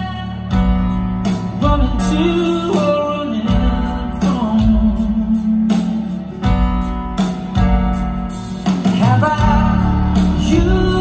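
Live band performance: a male lead singer sings a melody over electric guitar, bass and keyboards.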